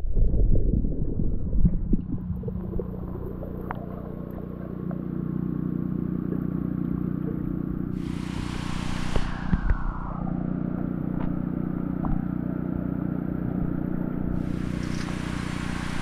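Muffled rumbling and knocking as the action camera is handled coming up out of the water, then the steady low rush of stream water flowing past a fish fence, with a few light clicks and a brief falling whistle about nine seconds in.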